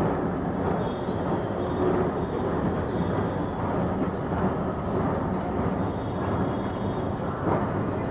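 Steady, even rumble of a moving escalator and the echoing metro-station hall around it, with no distinct knocks or calls.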